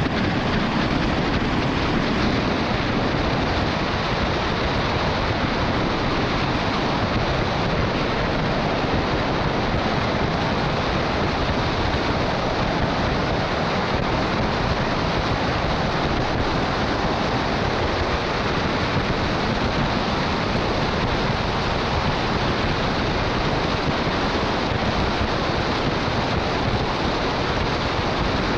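Steady rush of wind buffeting a roof-mounted camera on a truck at highway speed, mixed with tyre hiss on wet road. It is a little fuller in the low end for the first couple of seconds as an oncoming vehicle passes.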